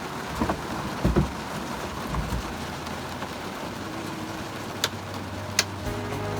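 Steady hiss of rain, with a few low knocks and two sharp clicks near the end.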